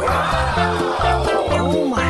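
Upbeat children's background music with a regular bass beat. A sweeping tone rises and falls over it at the start, and a shorter arching one comes near the end.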